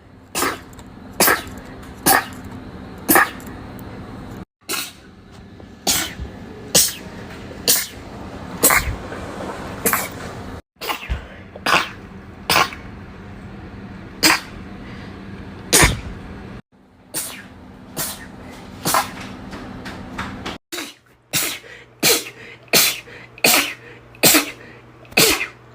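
A young woman's sneezing fit: a long run of quick sneezes about one a second, coming faster, about two a second, near the end. A few sudden short silences break the run.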